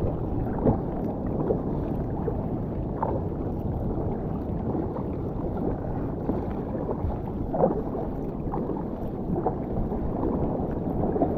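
Paddle strokes and sea water splashing and lapping against a sit-on-top kayak's hull in choppy water, with a few sharper splashes and a steady low rumble underneath.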